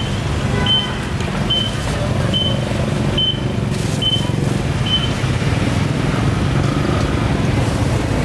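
A short, high electronic beep repeating evenly about every 0.8 seconds, about seven times, stopping about five seconds in, over a steady low rumble.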